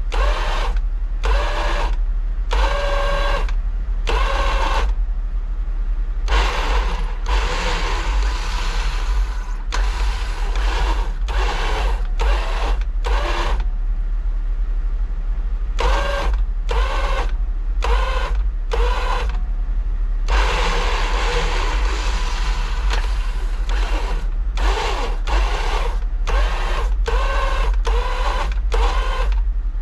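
Jeep-mounted electric winch motor whining in repeated short bursts of about a second, with a couple of longer runs, as it is jogged on and off pulling on a tree. A low steady rumble runs underneath.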